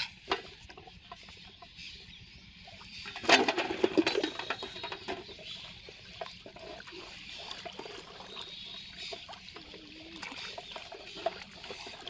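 Splashing in shallow pond water as a freshly caught fish is handled and put into a water-filled aluminium pot, with a burst of splashing a little after three seconds in as the loudest part.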